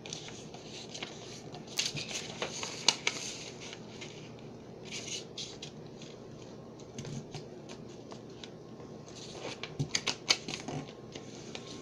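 A sheet of printer paper being folded and creased by hand: crisp rustling with sharp creasing strokes, busiest about two seconds in and again near the end.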